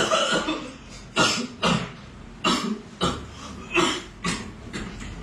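A person coughing over and over in short, hacking bursts, mostly two coughs at a time, with a fresh pair about every second and a half.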